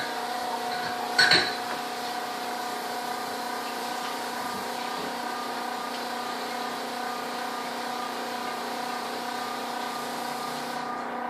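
Refrigerator running with a loud, steady hum made of several pitched tones. A brief loud knock about a second in.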